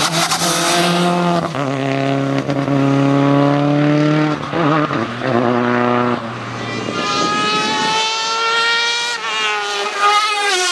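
Race car engine accelerating hard, its pitch climbing through the revs and dropping back at each upshift, about three gear changes in the first six seconds. Later the engine note sits higher and thinner and wavers near the end.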